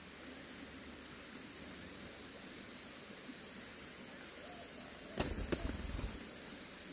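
Two sharp knocks about a third of a second apart, near the end, with a low rumble lasting about a second, over a steady hiss.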